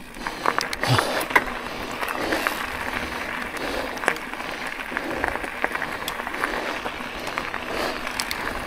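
KTM Macina Kapoho electric mountain bike riding over a rough trail: a steady rush of tyres on loose ground with frequent sharp clicks and rattles from the bike.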